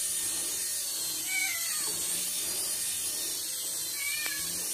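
Domestic cat meowing twice, short calls that fall in pitch: one about a second in and another near the end.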